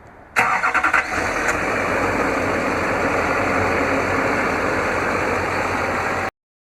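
6.6-litre Duramax V8 diesel engine of a Silverado 2500HD starting by remote start: a short burst of rapid cranking pulses as it catches, then a steady idle that cuts off abruptly near the end.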